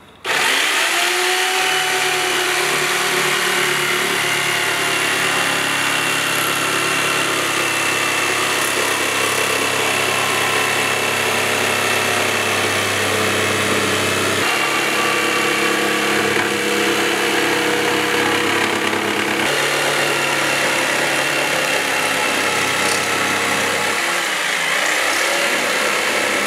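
GALAX PRO corded jigsaw cutting a wooden board. It starts about half a second in, spins up, then runs at a steady speed, its pitch shifting a few times as the blade works through the board.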